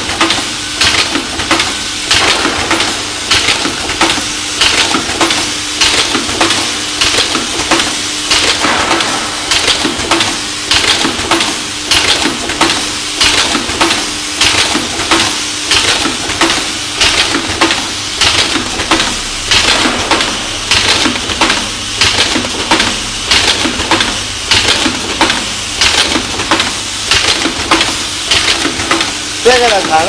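Automatic HDMI connector assembly machine running, its mechanism cycling in an even rhythm of sharp metallic clicks and clatter, a little under two strokes a second. A steady low hum sits under it until about halfway.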